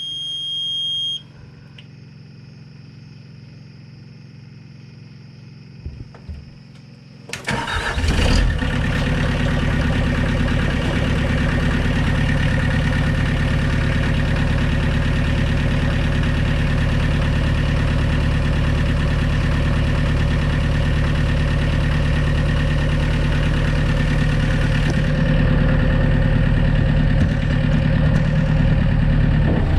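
A steady electronic beep for about a second, then the excavator's engine cranks and starts about seven seconds in. It settles into a steady run, a little louder near the end.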